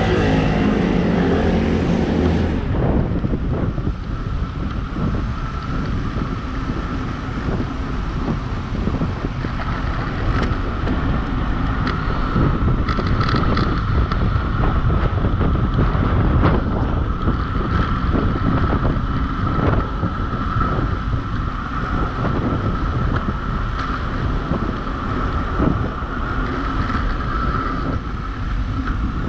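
Heavy wind buffeting on the microphone from a fast downhill ride, most likely on a bicycle, with a steady high whine running through it.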